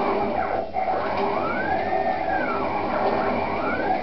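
CNC plasma cutting table running: a steady buzzing noise under a motor whine that rises and falls in pitch twice as the drive motors speed up and slow down along the cutting path.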